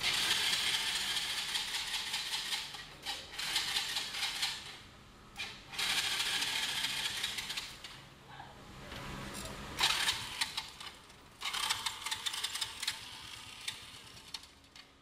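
Small quad bike engine running with a fast, clattering rattle and tick, in several stretches broken by short lulls.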